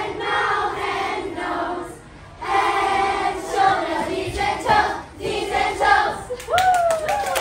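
A classroom of children singing together in chorus, in short chanted phrases with a brief break about two seconds in. Near the end, a short sliding high tone and a few sharp clicks.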